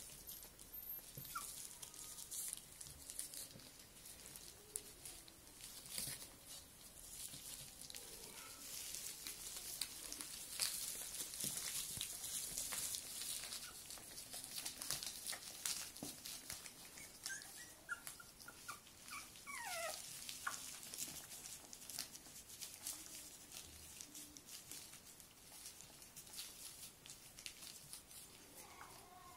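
Young Miniature Schnauzer puppies nursing and squirming against their mother, with soft clicking and crinkling of the plastic sheet under them throughout. A few high, falling puppy whimpers come about two-thirds of the way through.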